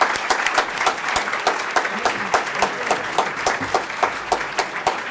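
Audience applauding with many hands clapping.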